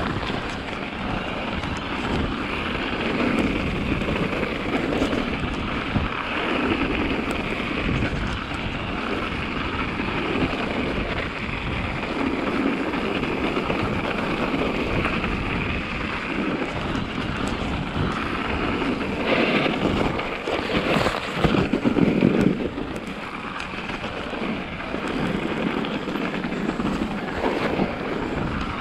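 Mountain bike ridden over a snowy forest trail: tyres rolling over packed snow, with steady wind noise on the microphone. A cluster of louder knocks and rattles comes about twenty seconds in.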